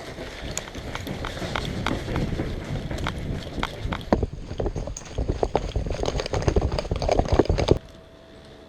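Footsteps and gear rattling of a player running, heard through a body-worn camera with wind on the microphone; the sound cuts off suddenly near the end.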